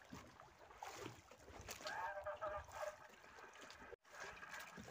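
Low, steady noise of sea water and wind around a small boat, with a brief gap about four seconds in.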